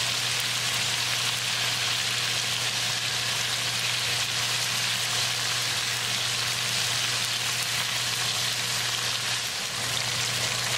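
Flour-coated chicken pieces deep-frying in a wok of hot oil: a steady sizzle with no letup.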